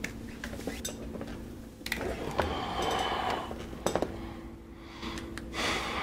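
Rustling with scattered sharp clicks and knocks as a person settles into an office chair, with a breathy rush in the middle.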